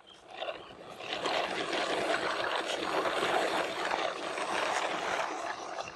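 Hard plastic wheels of a string-linked convoy of toy trucks rolling over rough asphalt: a steady rolling noise that builds about a second in and fades just before the end.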